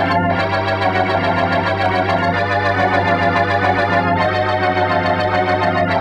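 Radio organ playing the show's closing music: sustained full chords with a fast tremolo over a steady low bass note, the chords changing about every two seconds.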